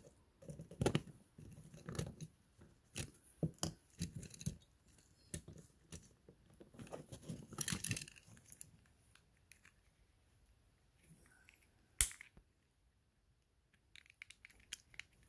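Plastic key fob parts handled and fitted back together: scattered small clicks, scrapes and rustles, with one sharp click about twelve seconds in.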